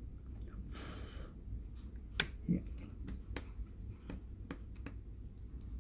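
Sharp clicks and taps from laptop parts being handled during reassembly, about half a dozen spread over a few seconds, with a brief hiss about a second in, over a steady low hum.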